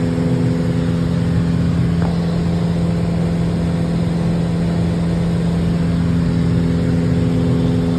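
Single-engine Cessna's piston engine and propeller running steadily during a climb, heard inside the cockpit as an even, low-pitched drone.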